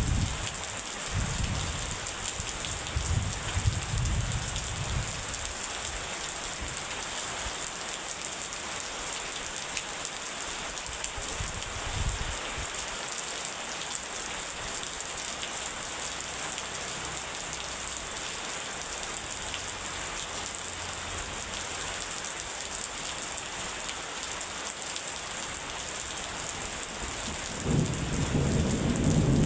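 Steady heavy rain falling, with thunder rumbling low in the first few seconds, a brief rumble near the middle, and a louder roll of thunder starting near the end.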